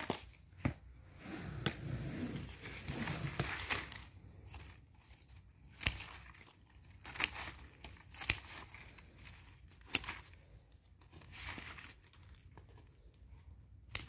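Potted begonia plants being cut back with a hand cutting tool: about seven sharp snips spread through, with rustling and crumpling of leaves and stems as the plants are handled, heaviest in the first few seconds.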